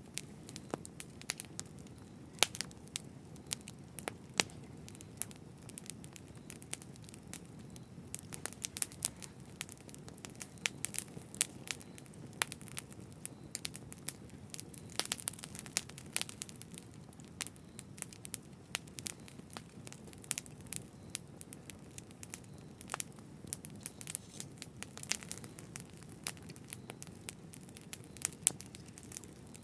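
Campfire burning steadily, wood crackling and popping in irregular sharp snaps over a low steady rush of flame.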